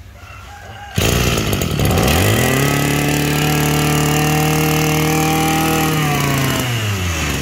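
Maruyama 23cc two-stroke brush cutter engine starting about a second in, revving up to a steady high speed, then slowing back down near the end.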